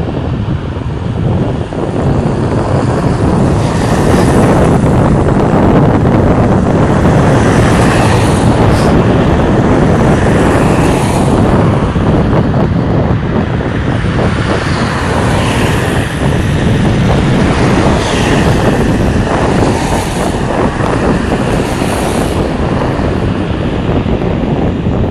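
Wind buffeting the microphone, with the tyre noise of several vehicles on the bridge swelling and fading as they pass.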